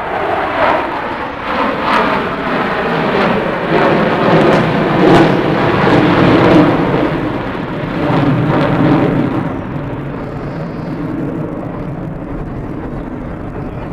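An aircraft flying past at an airshow: a loud roar that builds, drops in pitch as it passes, and fades after about ten seconds.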